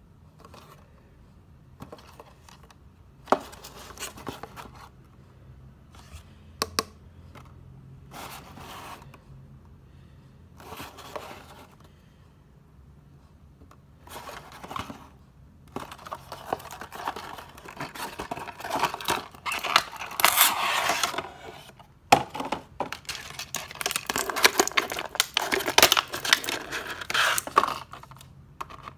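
Hands handling and opening a small cardboard box: scattered taps, scrapes and a few sharp clicks. About halfway through it turns into a longer stretch of rustling, scraping and crinkling as the clear plastic tray and card insert are worked out of the box.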